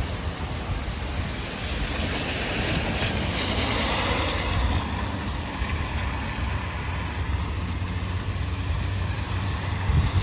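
A vehicle passing on a wet city street, its hiss swelling over the first few seconds and then easing off, over a steady low rumble of wind on the microphone.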